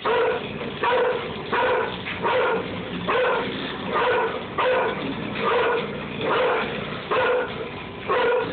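A dog barking in a steady series, about eleven barks spaced a little under a second apart.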